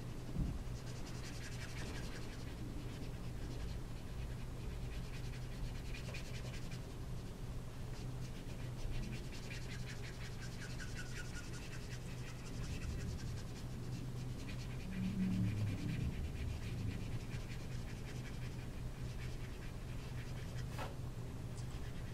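Copic alcohol marker's brush nib rubbing and scratching across cardstock in repeated short strokes, in spells with brief pauses, while filling in a colored area. A low steady hum runs underneath.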